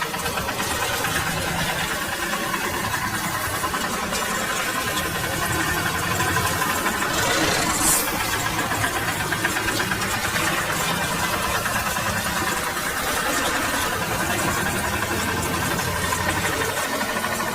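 An engine running steadily with a fast, even rattle, with a brief hiss about eight seconds in.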